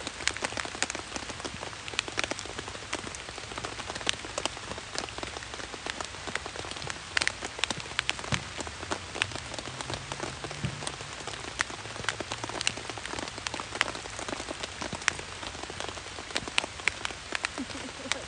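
Rain falling on a Coleman dome tent, heard from inside: many irregular sharp drop taps over a steady hiss.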